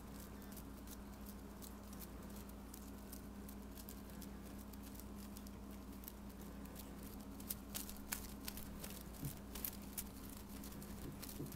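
Faint light taps and rustles as a cat bats at a feather wand toy on a tabletop, more frequent in the second half, over a steady low hum.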